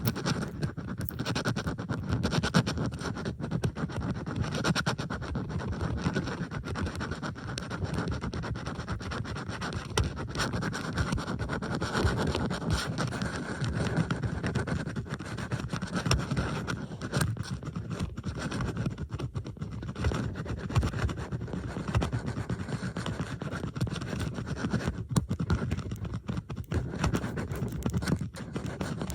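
Metal bobby pins being scratched and rubbed, a dense, continuous scratching full of small clicks, with several recordings layered over one another.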